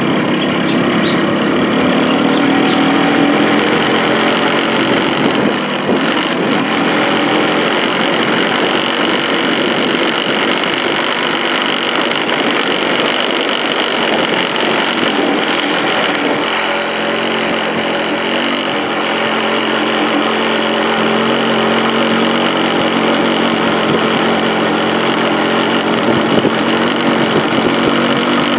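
A vehicle engine running while driving along a rough gravel road, heard from on board; its pitch rises over the first few seconds, then holds fairly steady.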